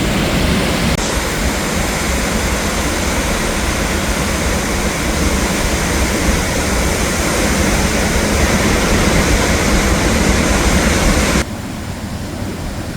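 High Force waterfall rushing: a loud, steady wash of falling water that drops suddenly to a quieter level near the end.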